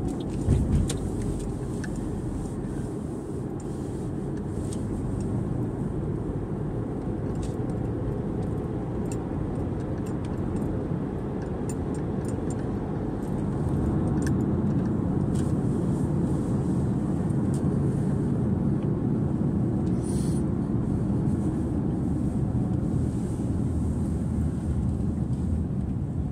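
Steady road and engine noise heard inside a moving car's cabin, with a brief thump about half a second in and growing louder about halfway through.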